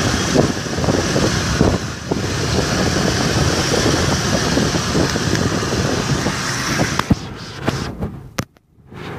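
Wind buffeting the phone microphone on a moving motor scooter, over the scooter's running engine. About seven seconds in, a few sharp knocks come as the phone is handled, and the noise briefly drops out.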